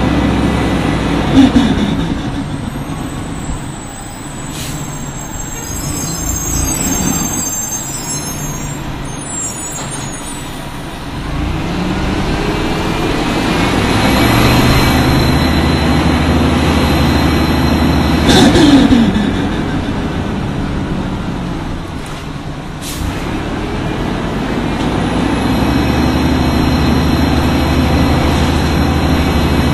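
Orion V bus's Detroit Diesel Series 50G natural-gas engine and Allison B-400R automatic transmission working through stop-and-go running: the engine note falls away, climbs as the bus pulls off, sweeps down again, then settles steady. Air-brake hisses and a sharp click come in between.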